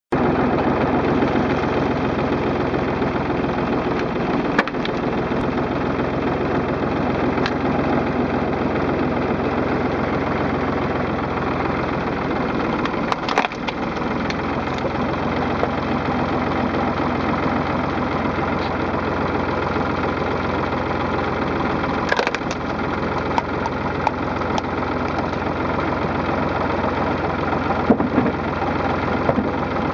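PTO-driven screw log splitter turned by a running tractor, a steady mechanical drone, as its spinning threaded cone bores into logs, with wood splintering and four sharp cracks as the logs split apart.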